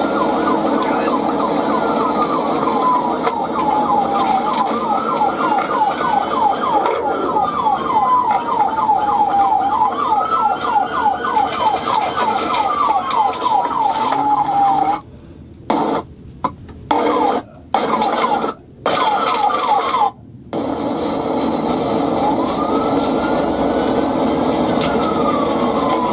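Police car siren alternating between a slow wail and a rapid yelp over steady road noise. The sound cuts out briefly several times partway through.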